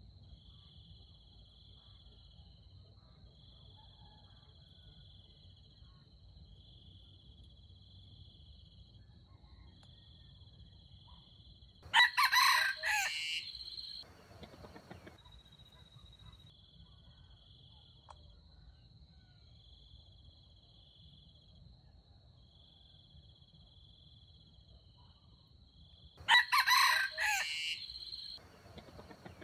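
Red junglefowl rooster crowing twice, each crow about two seconds long and some fourteen seconds apart. Between crows, insects keep up a steady high chirring with a slow pulse.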